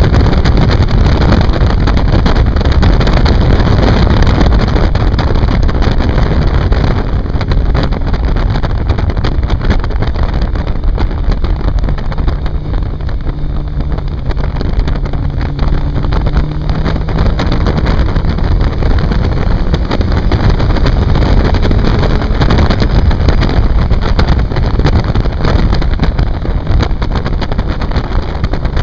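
Heavy wind buffeting on a microphone mounted on a moving motorcycle, with the motorcycle's engine running underneath, its pitch rising and falling as it rides through bends.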